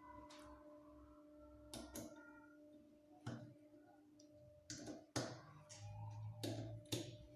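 Faint, scattered clicks and knocks of metal parts from a cut-open rotary compressor being handled and taken apart, about eight in all, over a steady low hum.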